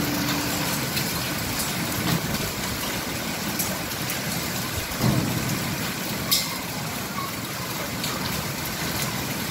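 Heavy rain falling steadily, with a few louder drops landing as sharp ticks, the sharpest about six seconds in.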